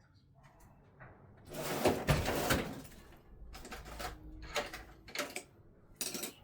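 Hand-work noises of prying a tire bead over a wheel rim, or of fetching a tool: a long, loud scraping rustle, then several short scrapes and knocks.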